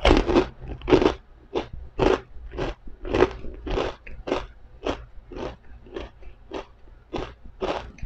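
Crispy fried pork rinds (chicharon) being chewed close to the microphone: a steady series of crunches, about two a second. The crunches are loudest in the first few seconds and somewhat softer as the piece breaks down.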